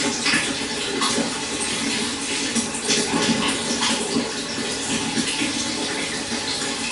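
Shallow stream flowing and babbling steadily, a continuous rush of water with many small splashes and trickles.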